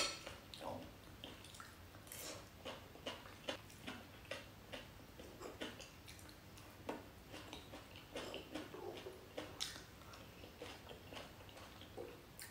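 Noodles being eaten with a fork from a bowl: faint chewing and light, irregular clicks and scrapes of the fork against the bowl.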